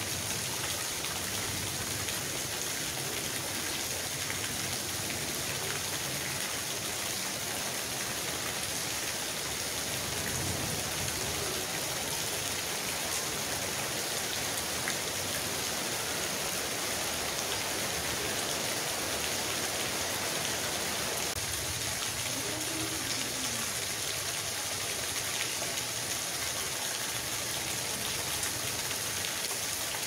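Steady rain falling on a gravel yard and puddle, with a thin stream of runoff pouring from above and splashing into the puddle.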